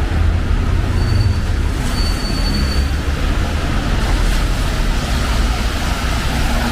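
Steady city traffic rumble with a hiss of rain and wet road. A short, high-pitched tone sounds twice in the first three seconds.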